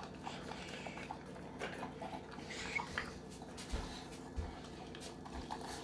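A dog eating soft homemade food of rice and vegetables from a stainless steel bowl: faint wet chewing and lapping with small irregular clicks, and a couple of soft low knocks around the middle.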